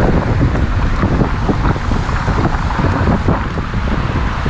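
Wind buffeting the GoPro Hero 5 Black's microphone as the bike rides along: a loud, steady rumble with no clear tone.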